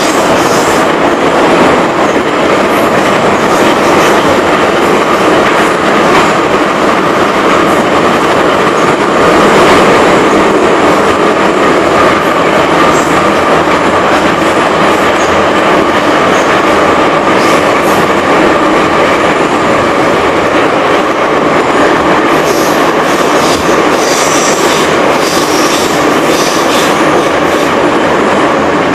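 Soviet-built 81-717/714 metro train running at speed, heard from inside the passenger car: loud, steady rumble of wheels on rail with a constant whine, and clicks of the wheels over rail joints.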